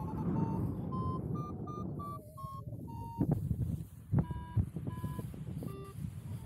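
Paragliding variometer beeping in short high tones over wind rush and buffeting on the microphone. The beeps come quickly and step up in pitch at first, then slow and drop lower. On a vario, beeping like this signals rising air.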